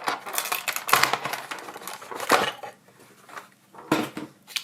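Irregular clicks, taps and rustling of objects being handled on a work surface, loudest around one second in, around two and a half seconds in, and again near the end.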